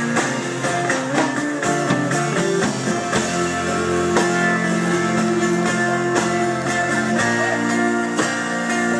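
Music: a song's guitar-led instrumental passage running steadily between sung lines.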